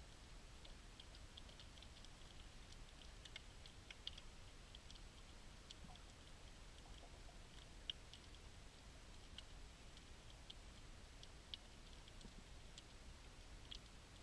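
Faint underwater reef ambience: a low rumble with irregular sharp clicks and crackles, a few a second, some louder than the rest.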